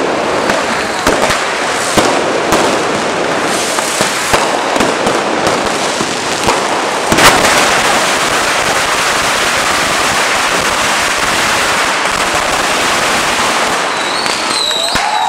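Firecracker strings crackling densely, with sharp louder bangs among them; the loudest bang comes about seven seconds in, and after it the crackle runs on steadily. A few rising whistles sound near the end.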